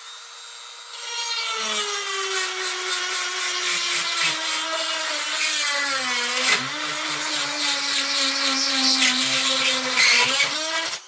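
Handheld electric power tool working the steel felling dog for a chainsaw. Its motor pitch drops as it bites into the metal about a second in and sags further midway under load, then rises again just before it stops. The metal heats up as it is worked.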